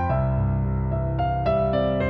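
Background keyboard music: a melody of single notes changing every fraction of a second over held low chords.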